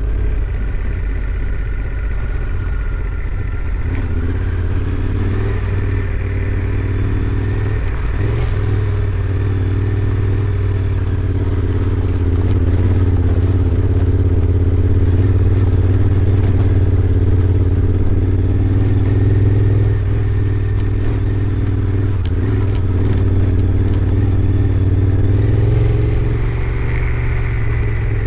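Honda Africa Twin 1100's parallel-twin engine running under way at fairly steady, moderate revs. It gets a little louder about twelve seconds in and eases back near twenty seconds.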